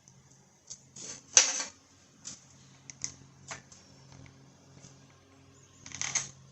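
Hand tools and small metal hardware clicking and clattering in irregular bursts, loudest in two short rattles about a second and a half in and near the end, over a faint steady hum.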